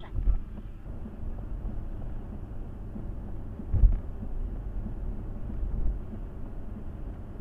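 Low, steady road and engine rumble heard inside a car's cabin while driving on a wet road, with a low thump about four seconds in.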